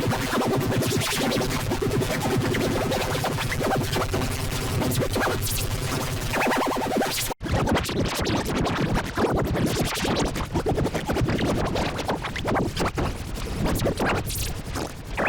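Heavily effects-processed, distorted audio like electronic music with record-scratch sounds, dense and layered throughout; it cuts out for an instant about seven and a half seconds in and starts again.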